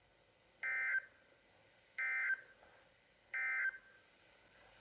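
Emergency Alert System end-of-message signal on NOAA Weather Radio: three short, identical bursts of buzzy two-tone SAME data, about a second and a half apart. They mark the end of the warning message.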